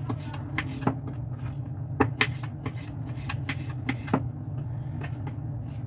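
A small kitchen knife slicing fried tofu puffs on a wooden cutting board: irregular knocks of the blade against the board, a few a second, the loudest about two seconds in, over a steady low hum.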